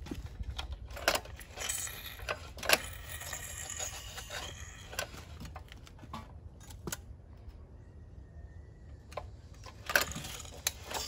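Metal parts of a torn-down Predator 97 cc engine clinking and clattering as they are handled and set down, in irregular clicks with a few sharper knocks and a quieter lull about two-thirds of the way through.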